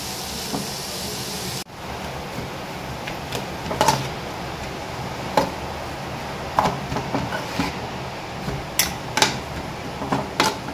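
Onions frying in oil in a pan with a steady sizzle, a spatula stirring and knocking against the pan now and then. The sound cuts out for an instant about a second and a half in, then carries on.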